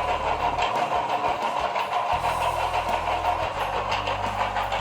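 Ridgid 4x6 metal-cutting bandsaw running steadily under its electric motor, switched on for a test of its new wiring and automatic shutoff switch. A low hum under the running note grows stronger about two seconds in.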